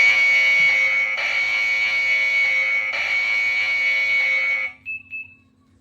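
Security alarm kit's siren sounding a loud, steady high-pitched tone. It cuts off about four and a half seconds in, followed by two short beeps.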